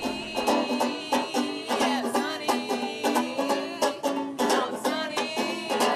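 A banjo picking a lively tune, the plucked notes coming in quick succession.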